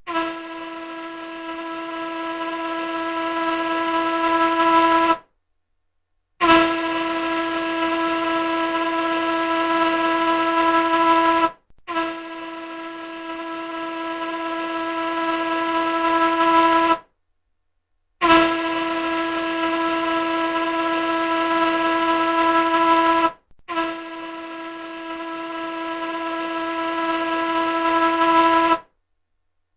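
Large ship's horn sounding five long blasts of about five seconds each, with short breaks between them. Each blast is one steady tone that grows louder as it is held.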